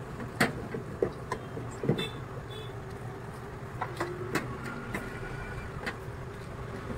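A hand beating thick gram-flour (besan) batter in a steel bowl: irregular soft wet slaps and knocks against the bowl, a few per second at most, over a steady low hum.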